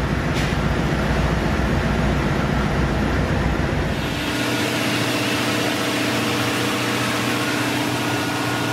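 Steady machinery noise of a ship's engine room. About four seconds in the deep rumble drops away, leaving a steadier hum.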